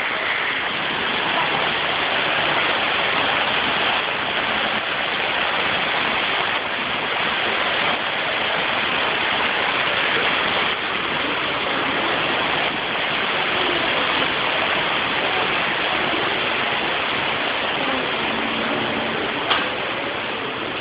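Indoor display waterfall, its water rushing steadily, with one short click near the end.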